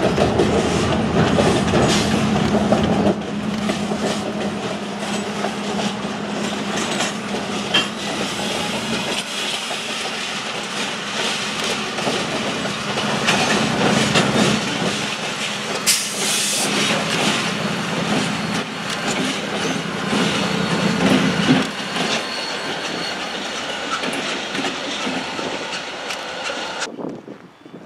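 Freight train passing, headed by Illinois Central SD40-3 and CN diesel locomotives: the hum of the diesel engines mixed with the steady clatter of wheels over the rails. The sound drops away sharply about a second before the end.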